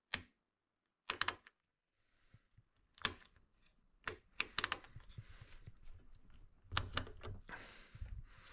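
Small clamps being handled and set onto a freshly glued mounting plate: scattered sharp clicks and light knocks, several in quick clusters, with soft handling noise between.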